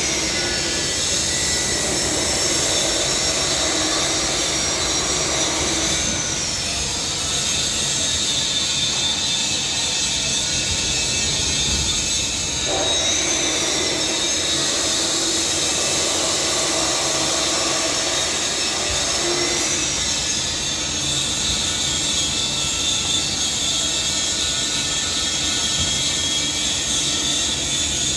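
Loud, steady machinery noise with a strong high hiss, running without a break. A short high-pitched glide comes back about every seven seconds.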